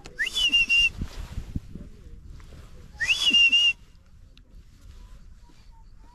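Two loud whistles about three seconds apart. Each rises quickly, then holds one steady pitch for about half a second.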